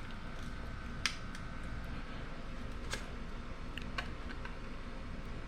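A few short, sharp clicks of small parts being handled, a second or so apart, over a steady low hum.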